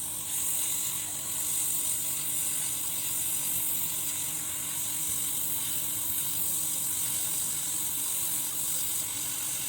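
Hot-air rework gun blowing a steady hiss over the circuit board, heating the solder to lift off the surface-mount IC. The hiss starts and stops abruptly.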